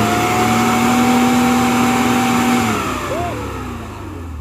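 Toyota Land Cruiser FJ40's engine revved hard and held at high revs under load as the off-road 4x4 climbs out of a muddy creek with its wheels spinning in the mud, then the revs fall away about two-thirds of the way through.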